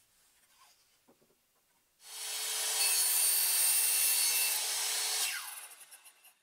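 Electric circular saw switched on about two seconds in and cutting through wood for about three seconds. It is then switched off, and the blade winds down with a falling whine.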